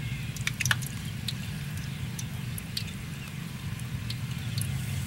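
Oil heating in a wok on a portable gas stove: a steady low burner hum with scattered small pops and ticks, a cluster of them about half a second in.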